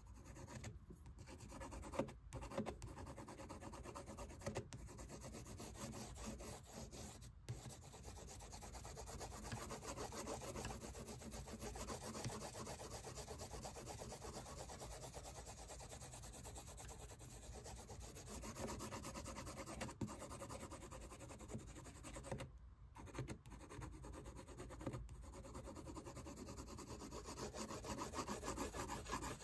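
Colored pencil shading on sketchbook paper: a steady, fast, scratchy rubbing of many quick strokes, with a few brief pauses.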